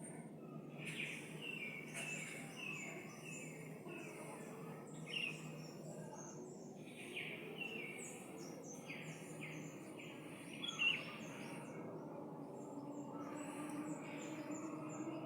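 Small birds chirping in many short, quick falling notes, one louder chirp near the end, over a steady low background rumble.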